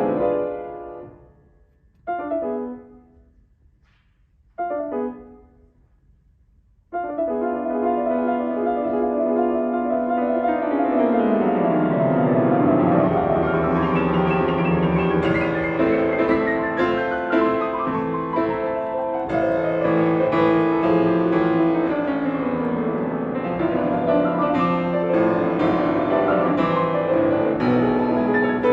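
Steinway D concert grand piano: a ringing chord dies away, then two short chords each fade into silence. About seven seconds in, loud, fast, continuous playing begins, with rapid runs sweeping down and up the keyboard.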